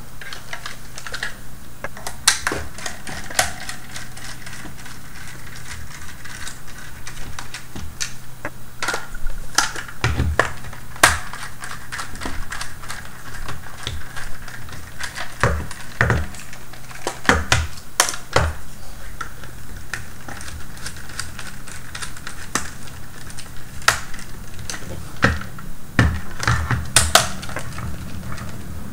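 Irregular clicks and taps of a small screwdriver turning screws into the plastic casing of a Scribbler 2 robot as it is handled and turned.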